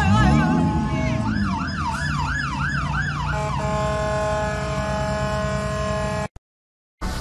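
An engine revs up, then an emergency-vehicle siren wails rapidly up and down, about twice a second, for a couple of seconds. The sound cuts out briefly near the end.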